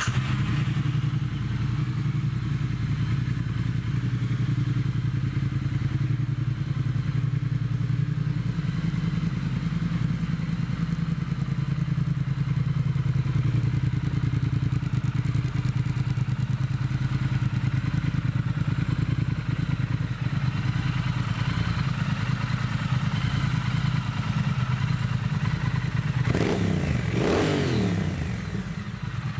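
A 2016 Triumph Thruxton R's 1200cc liquid-cooled parallel-twin engine, just started, idling steadily. Near the end it is revved briefly, the pitch rising and falling back.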